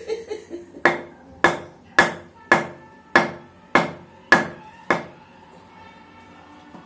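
Heavy block hammered onto the back of a long knife to drive the blade through a turtle's shell: eight sharp knocks, about one every 0.6 s, that stop about five seconds in.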